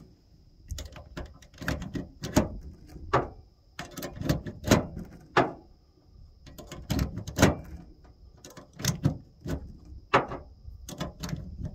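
10mm cartridges being pushed one by one into a pistol magazine with a hand magazine-loading tool: a run of sharp clicks and snaps at an uneven pace, about one or two a second, with short pauses between.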